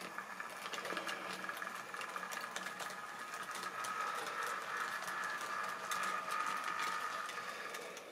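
Model railway train running on its track: the locomotive's small electric motor gives a steady whine while the wagon wheels click and rattle over the rail joints.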